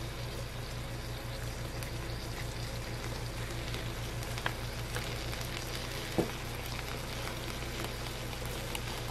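Pork steaks sizzling steadily on a hot griddle, with a few faint pops and a low steady hum underneath.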